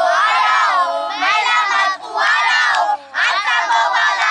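A group of children chanting and shouting a song loudly together during a circle game, in phrases broken by short pauses about two and three seconds in.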